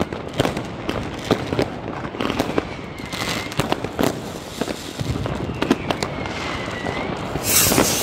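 New Year's Eve fireworks: a steady run of sharp bangs and pops from firecrackers and rockets going off all around, with a couple of faint whistles. Near the end a loud hissing rush comes in, the sound of a rocket launching close by.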